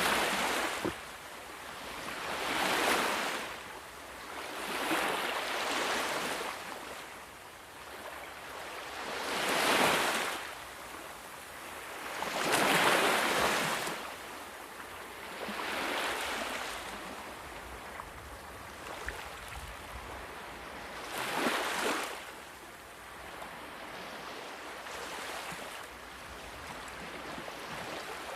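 Sea waves breaking and washing on a shore: the surf swells and falls away in repeated surges, roughly one every three seconds, some much stronger than others.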